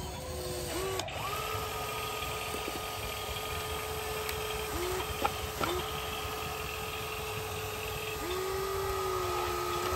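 Small electric motors and gearboxes of a radio-controlled toy excavator whining as its arm lifts a toy truck. The whine switches on and off a few times with short slides in pitch, with a couple of faint clicks near the middle.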